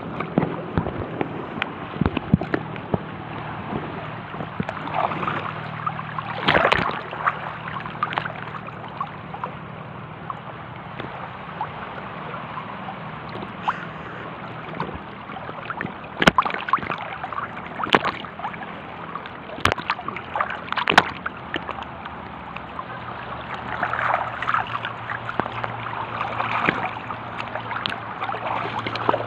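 Small waves of shallow sea water lapping and sloshing close around a camera held at the surface, with a few sharp clicks in the middle.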